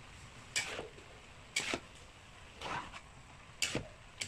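Kitchen utensils knocking and scraping during food preparation: four short knocks about a second apart, with a smaller one near the end.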